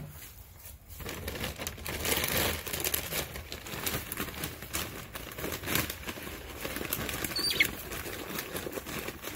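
Chickens pecking at feed in a feeder: a rapid, irregular tapping and rustling of beaks in the grain. There is one short high falling call about seven and a half seconds in.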